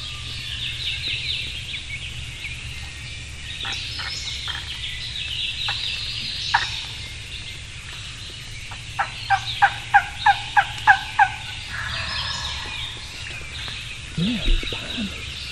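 Turkey yelping on a wingbone call: a run of about eight sharp, evenly spaced yelps about nine seconds in, after a few single notes. Songbirds chirp throughout.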